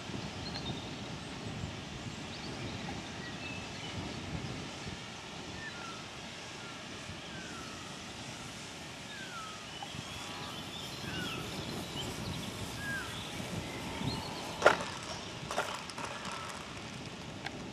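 Wind rumble on the microphone with birds chirping, and no motor audible. Near the end come two sharp knocks, the first much the loudest, as the Multiplex FunCub RC plane's wheels touch down and bounce on the ground.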